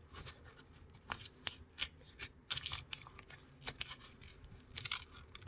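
A sheet of paper being folded and creased by hand: faint, irregular crinkles and rustles as its layers are opened and pressed flat.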